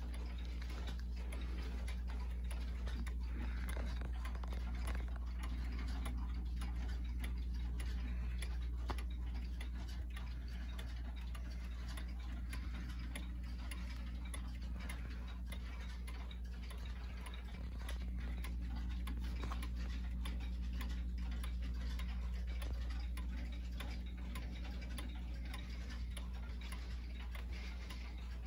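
Howard Miller Jennison triple-chime wall clock's mechanical, key-wound pendulum movement ticking steadily and evenly, with no chime. A steady low hum runs underneath.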